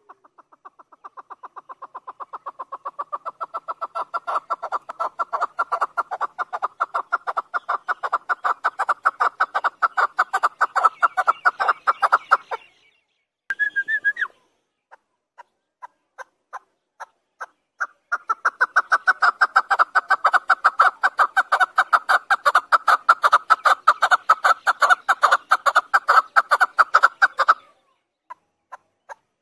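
Chukar partridge calling: two long runs of rapid, evenly repeated clucking notes that build in loudness, with a few scattered single notes in the pause between them and near the end.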